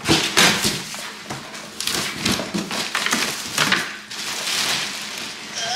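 Cardboard box flaps and plastic wrapping being handled: irregular rustling, crinkling and scraping with a few knocks as a car seat is unpacked from its box.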